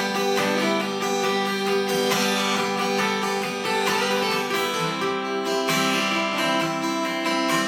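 Instrumental break in a live song: acoustic guitar strummed, with sustained chords changing every second or so.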